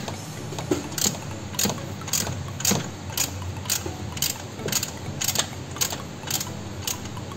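Socket wrench ratcheting on the 14 mm fan-belt tensioner bolt: sharp metallic clicks about twice a second as the bolt is tightened to set the belt tension.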